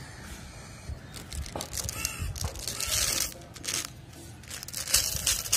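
Small candy-coated chocolates rattling and clattering as they are shaken out of a small plastic bottle onto a woven straw mat. The sound comes in irregular bursts, and the loudest is about five seconds in.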